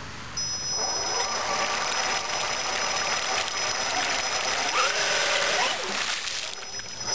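A 1/6-scale electric RC monster truck driving through pond water: its big tires churn and splash with a steady rush, over a high electric whine. A whine rises in pitch about five seconds in, and the churning dies down shortly before the end.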